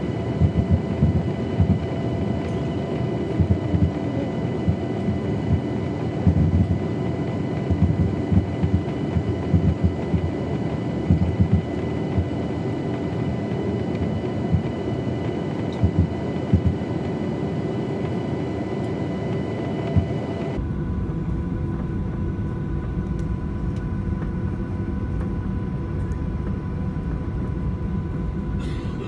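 Cabin noise of a Boeing 737-900 taxiing, heard from a window seat: a steady engine rumble with thin whines over it and irregular low thumps from the first dozen seconds. About twenty seconds in the sound changes abruptly to a steadier, deeper rumble.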